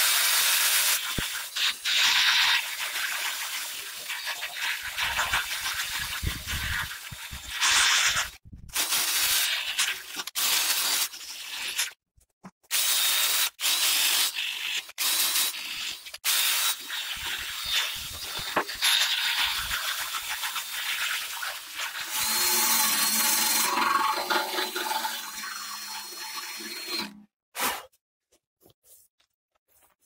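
A power drill-driver fitted with a hex socket runs in repeated bursts of a few seconds with short pauses between them, driving out the fasteners on a steel washing-machine drum. Its motor whine is steady in the longer runs, and it stops near the end.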